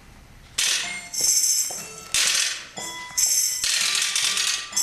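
Small bells jingling, shaken in repeated bursts of about a second each, starting about half a second in.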